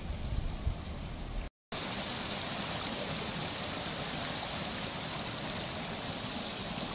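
Floodwater rushing and splashing as it cascades over piled debris: a steady, full rushing noise that cuts in suddenly after a brief dropout about a second and a half in. Before the dropout there is a low rumbling noise.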